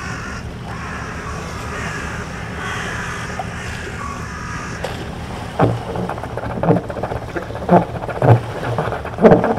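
Steady low drone of a boat engine, broken in the second half by about five loud, short, rough bursts.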